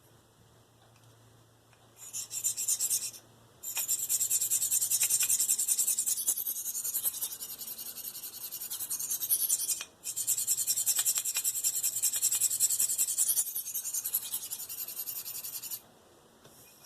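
Knife blade of V-Toku2 steel stroked freehand across a Spyderco 302M medium ceramic sharpening stone, a fast run of hissy scraping strokes. The strokes come in three runs, broken by short pauses about three and a half and ten seconds in.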